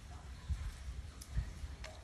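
Nursing puppies suckling at their mother dog's teats: faint irregular clicking and smacking, with a couple of sharper clicks in the second half, over low irregular thumps.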